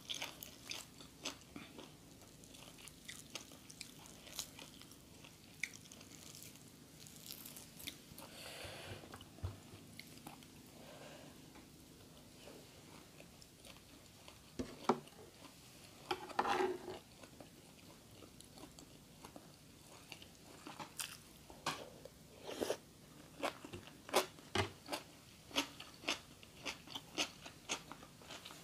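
A person chewing crunchy food close to the microphone: a run of short, sharp crunches and mouth sounds, which come thicker and more regularly over the last several seconds.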